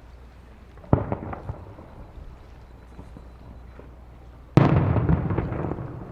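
Aerial fireworks shells bursting: a sharp bang about a second in, followed by brief crackling, then a louder bang near the end that rolls on and fades out over a second or so.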